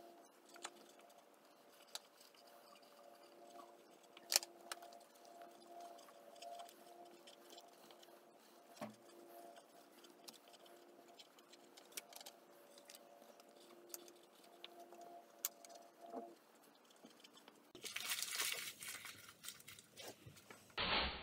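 Pen scratching on paper with occasional small taps on a desk under a faint steady hum; near the end, a few seconds of louder paper rustling as pages in a ring binder are handled.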